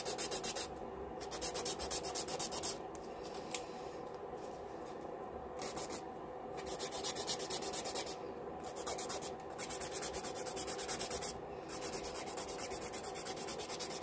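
Handheld nail buffer rubbed quickly back and forth over acrylic nails, smoothing the surface: a dry, scratchy rasping in runs of fast, even strokes broken by short pauses.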